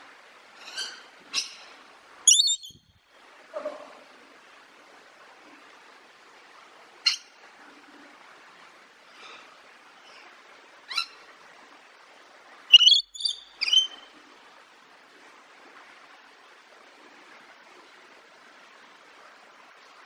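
Rainbow lorikeet giving short, sharp, shrill calls at irregular intervals, with a quick run of three calls about two-thirds of the way through, over a steady faint hiss.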